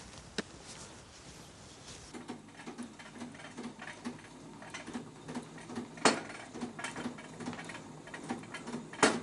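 Black vintage sewing machine stitching at a slow, steady pace: a soft clatter about three times a second that starts about two seconds in, with a couple of sharper clicks.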